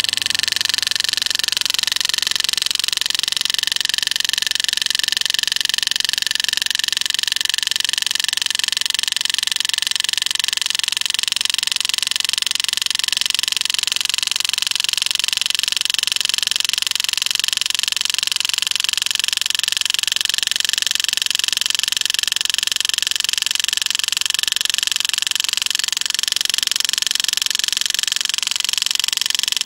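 Pneumatic power-assist engraving handpiece running steadily: a high hiss with a fast buzz from its air-driven hammering as the graver cuts into a coin.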